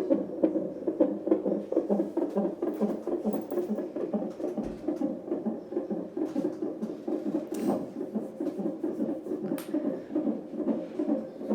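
Fetal heartbeat picked up by a CTG monitor's Doppler ultrasound transducer: a fast, even train of pulses. Two brief sharp clicks come later on.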